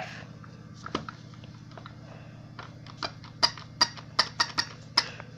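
Battery-powered toy puppy's light clicking taps, a single one about a second in and then two or three a second from about halfway, over a faint steady low hum.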